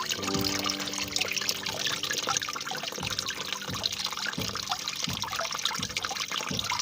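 Water trickling and babbling steadily, with soft instrumental music playing underneath.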